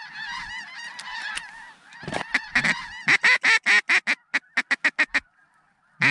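Snow goose chatter, many overlapping high calls, fading out about two seconds in. Then a mallard duck call blown close by in a quick run of loud quacks, about four a second, the later ones shorter and tapering off.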